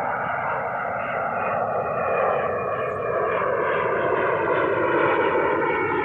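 Loud, steady drone of a passing engine that starts suddenly and slowly falls in pitch.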